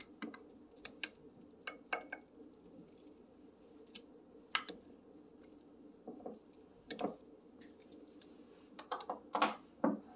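Raw kingfish steaks being handled and turned over in a ceramic baking dish by gloved hands: scattered light clicks and a few soft knocks against the dish, over a faint steady hum.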